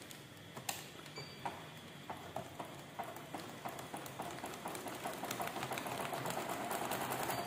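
Electric domestic sewing machine stitching a zigzag seam, the needle ticking in a quick rhythm. It runs in short spurts at first, then faster and louder through the second half.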